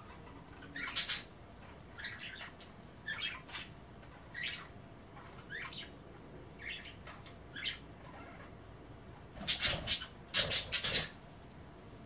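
Budgerigars chattering in short, scattered chirps about once a second, with a louder cluster of sounds near the end.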